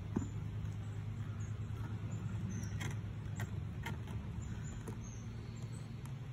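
Honeybees humming steadily around an open hive, with a few sharp clicks and knocks from hive parts being handled.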